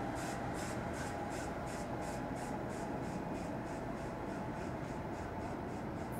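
NJ Transit Arrow III electric multiple-unit train moving along the track: a steady low rumble with a rhythmic hiss pulsing about four times a second.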